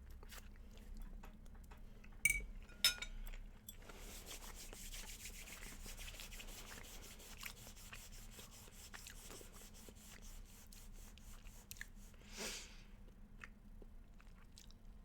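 Two sharp clinks of a utensil against a dish about two seconds in, then a person chewing a mouthful of food with hot sauce on it for several seconds, with rapid small crunching clicks.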